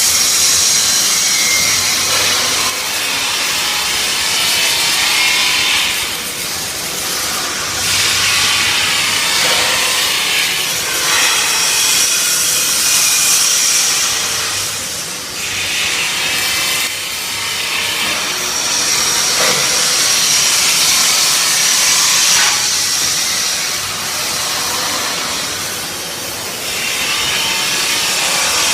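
MIG welder arc crackling and hissing in several runs of a few seconds each, with brief breaks between them.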